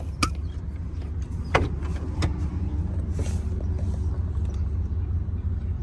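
Vehicle engine idling steadily, with a few sharp clicks or knocks near the start and about a second and a half in.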